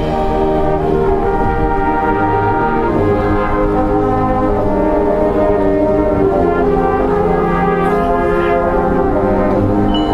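Marching band brass playing sustained, loud chords that change every second or two, with low brass underneath.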